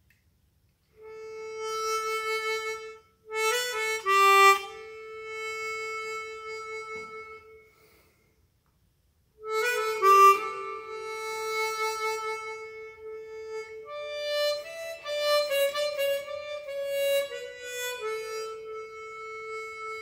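Kongsheng Lyra chromatic harmonica fitted with a Kettlewell frictionless slider mouthpiece, played for a sound test: long held notes with a few quick note changes, a pause of about a second and a half midway, then a livelier passage of moving notes.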